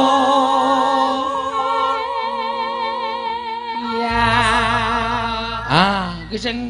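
Javanese singing in long held notes with a wide, wavering vibrato, over steady sustained accompanying tones. A deep low tone enters about four seconds in, and near the end the voice swoops sharply up and back down.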